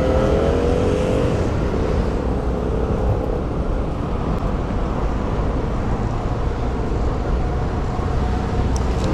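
Steady wind noise on the camera's microphone while cycling, over city road traffic. A music track fades out in the first second and a half.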